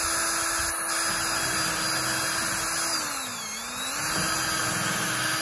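Cordless drill boring a hole into a wooden post, its motor running with a steady whine. About three seconds in, the pitch sags for a moment as the motor bogs under load, then comes back up before the drill stops at the end.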